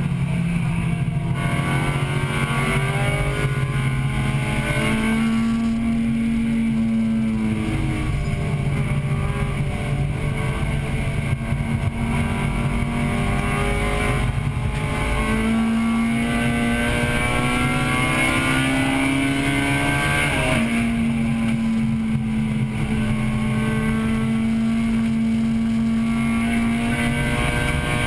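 A 1998 Acura Integra Type-R's four-cylinder VTEC engine, heard from inside the cabin while racing on track. Its pitch climbs steadily as it revs and drops back sharply about three times, over a constant rush of wind and road noise.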